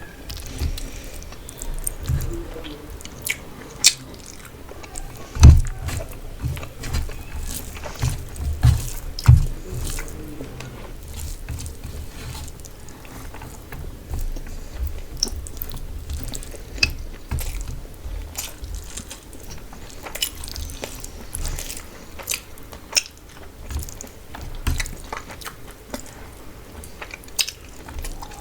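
Close-up eating sounds: a person chewing and biting food with mouth clicks and wet smacks, with occasional crunches, loudest about five seconds in and again around eight to nine seconds.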